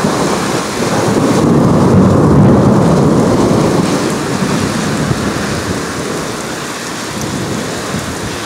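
Thunder rumbling over steady heavy rain. The rumble swells about a second in, is loudest around two to three seconds, then slowly dies away.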